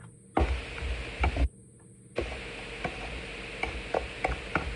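A metal spoon clinking and scraping against a bowl as food is stirred and scooped: a string of light, irregular clicks over a steady background hiss, with a couple of low thumps in the first second or so.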